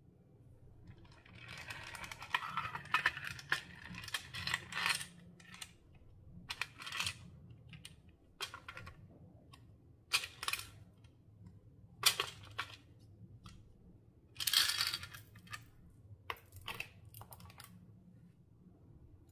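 Clear slime worked by hand, giving irregular crisp clicking and crackling pops. A dense run of crackles comes from about two to five seconds in, followed by scattered single clicks and a short crackly burst about fifteen seconds in.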